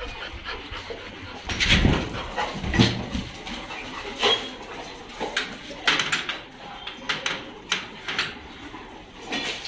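A pack of dogs moving about on a tiled floor: scattered clicks and knocks throughout, with a louder, deeper knock about two seconds in and another about a second later.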